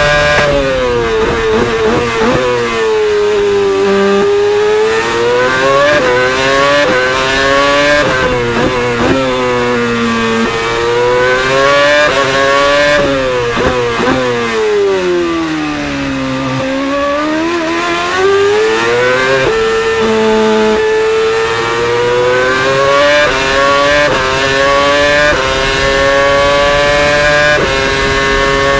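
Onboard sound of a Mercedes F1 W04's 2.4-litre V8 racing engine at full race revs, climbing in stepped upshifts along the straights and falling in rapid downshifts under braking for corners, lap after lap, several times in a row. About two-thirds of the way in it holds a steadier pitch for a few seconds before climbing again.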